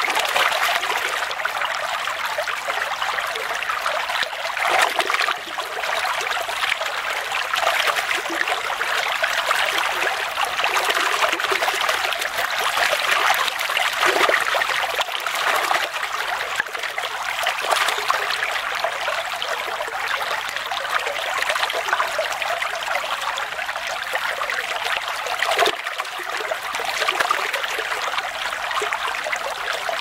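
Small brook babbling over stones, a steady rush of running water close to the stream.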